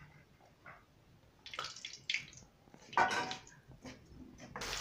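Short wet squelches and slaps as raw barari fish pieces, coated in turmeric and salt, are turned over by hand in a steel plate. Near the end hot oil in an iron kadhai starts a steady sizzle.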